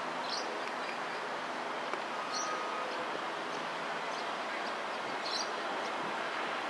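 Gold Coast light rail tram, a Bombardier Flexity 2, rolling slowly over pointwork: a steady, even running noise. A few short high chirps stand out over it, about three times.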